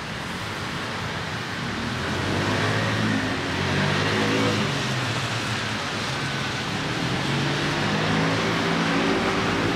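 City street traffic with a car engine running close by, its hum growing louder over the first few seconds and then holding steady.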